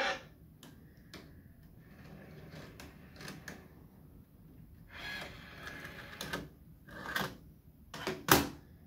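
Sony EV-S9000E Hi8 video deck unloading and ejecting a cassette: a string of mechanical clicks and short whirring, rattling stretches as the transport unthreads the tape, ending in a sharp click, the loudest of them, near the end.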